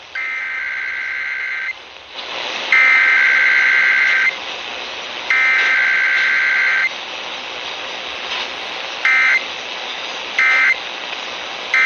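Emergency Alert System SAME data bursts, a harsh buzzy digital warble. Three long bursts of about a second and a half each are the test's header; three short bursts near the end are the end-of-message code. They sound over radio hiss that gets louder about two seconds in.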